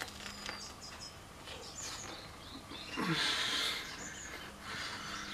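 Small birds chirping faintly with short, high calls, and a short burst of noise about three seconds in.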